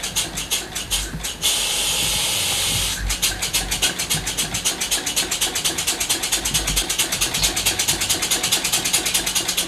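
Small model steam engine running on compressed air, its exhaust chuffing in short, even puffs of hiss. About a second and a half in, a steady hiss lasts a second and a half, and then the chuffing resumes at a quicker beat.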